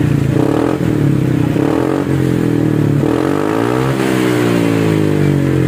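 Honda PCX 160 scooter's single-cylinder four-stroke engine running through an aftermarket round stainless muffler with an end cap. It is given a couple of short throttle blips, then a longer rev that rises for about two seconds and falls back toward idle.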